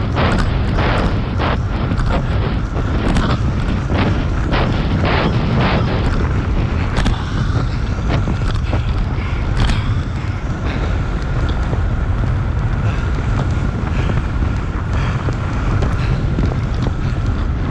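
Heavy wind buffeting on the microphone of a road bike ridden at about 25 mph. Over the first several seconds there is a quick run of sharp knocks and rattles as the bike jolts over rough, patched pavement.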